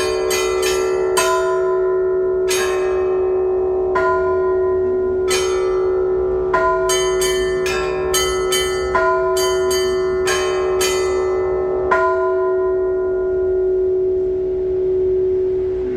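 Russian Orthodox church bells ringing: quick clusters of strikes on the smaller bells over a steady hum that lasts throughout. About twelve seconds in the strikes stop and the bells ring on, fading, until the next strike near the end.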